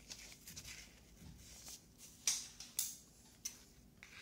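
Masking tape and card being handled: faint rustling and crackling, with three short sharp clicks between about two and three and a half seconds in.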